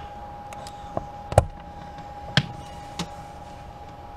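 A few sharp clicks and knocks, the loudest about a second and a half in, as multimeter test-probe tips are pulled from the slots of a wall outlet and the leads are handled.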